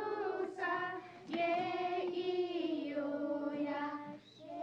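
A group of children chanting syllables together in a drawn-out, sing-song unison, likely reciting a chart of Cree syllabics. Each syllable is held as a long note, with a short pause about a second in.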